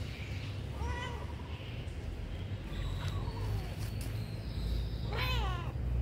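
Domestic cat meowing a few times, each meow rising and falling in pitch, the loudest about five seconds in.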